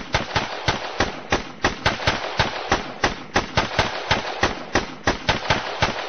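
Background music intro: sharp, evenly spaced percussive hits about three a second over a steady noisy wash.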